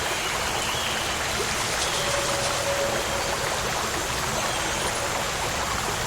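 A steady, even rushing noise at a constant level, with a faint brief tone about two seconds in.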